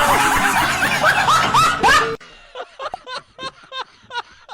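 A loud noisy din with short rising squeaks for about two seconds, cutting off suddenly. Then a person snickering in short repeated bursts, about three a second.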